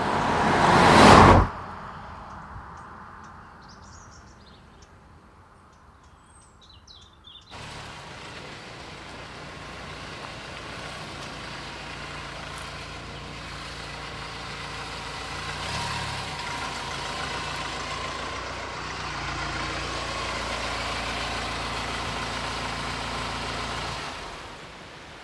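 An Audi saloon car passes close by with a brief loud rush. After a quieter stretch with a few faint high chirps, the car runs steadily with engine hum and tyre noise on a rough road, then stops near the end.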